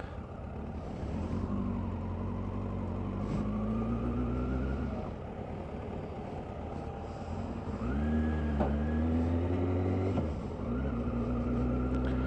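Motorcycle engine pulling away and accelerating, its pitch climbing, dropping back at each change of gear about five, eight and ten seconds in, then climbing again.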